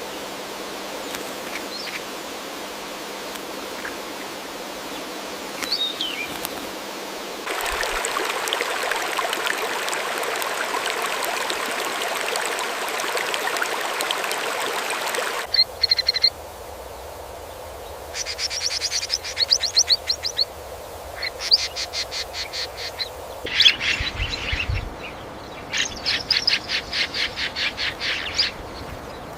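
Wild birds chirping and calling, with single high chirps at first. A stretch of steady rushing noise without calls follows, then birds give several quick rapid trills in the second half.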